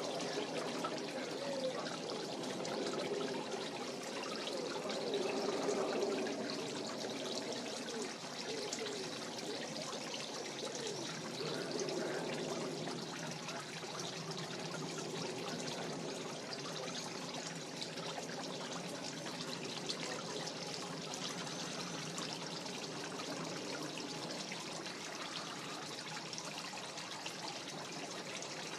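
Steady trickling and pouring noise of running water.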